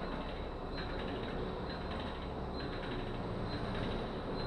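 Kayak paddling machine running under steady strokes, its mechanism giving a continuous mechanical whir with a faint pulse about once a second as the strokes alternate side to side.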